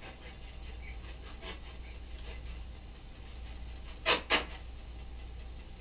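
Quiet room tone: a steady low electrical hum with faint hiss and a few faint ticks, broken about four seconds in by two short, sharp noisy sounds a quarter of a second apart.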